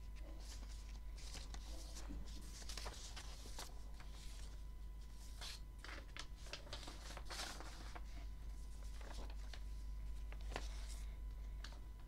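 Sheets of perforated-edge paper rustling and crackling as pages are turned over by hand, in a run of short, irregular rustles over a steady low hum.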